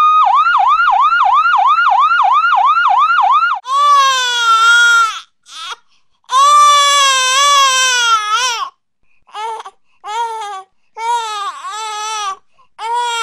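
An emergency siren winds up in pitch, then yelps in rapid sweeps of about four a second and cuts off after about three and a half seconds. Then a baby cries in long, high wails with short breaks between them.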